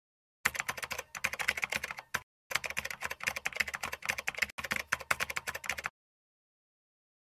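Typing sound effect: a fast run of key clicks, in two runs with a short break a little over two seconds in, stopping just before six seconds.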